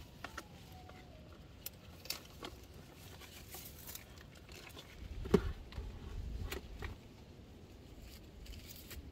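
Scattered rustles and small snaps of orange-tree leaves and twigs being handled, with a sharper knock and a brief low rumble about five seconds in.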